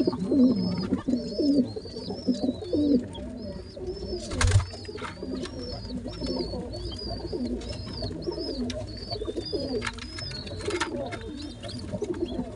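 Pigeon squabs begging while being fed by the adult: a continuous run of short, high squeaks, about two a second, over a low warbling from the feeding birds. A single thump about four and a half seconds in.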